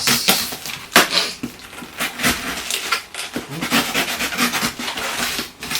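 Cardboard shipping box being cut and pulled open by hand: irregular scraping and rustling with a few sharp knocks, the loudest about a second in.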